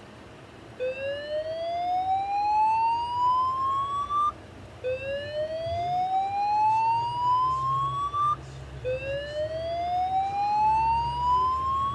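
Fire alarm voice-evacuation speaker sounding the slow whoop evacuation tone: three rising sweeps, each climbing in pitch for about three and a half seconds and cutting off before the next begins. It is the signal for a reported fire in the building.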